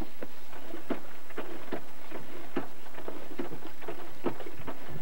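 Irregular light knocks and taps, about two or three a second, on a boat under sail.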